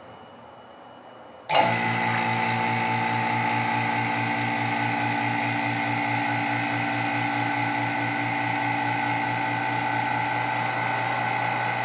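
Electric rotary-vane vacuum pump switching on suddenly about a second and a half in and then running with a steady drone. It is pumping down the vacuum pot, started automatically by the pot's regulator because the vacuum has dropped too low.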